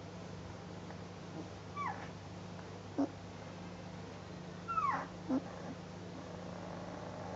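Ten-day-old Northern Inuit puppies squeaking and whimpering: a handful of short, high calls that fall in pitch, twice as longer squeals, with brief yips between.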